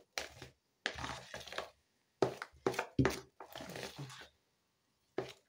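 A hand mixing and squeezing soft, sticky cookie dough in a bowl: wet squelching and slapping in a series of short bursts, with short pauses about two seconds in and near the end.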